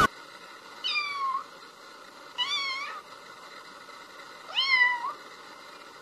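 Kitten mewing: three short, high mews, each rising and then falling in pitch, about two seconds apart, over a faint steady hiss.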